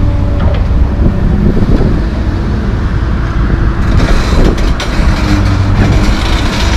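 Diesel engine of a Komatsu PC220LC tracked excavator running steadily as the machine swings its empty bucket back from the dump truck to the rubble pile, a low drone with steady engine tones. From about four seconds in a passing car adds road noise.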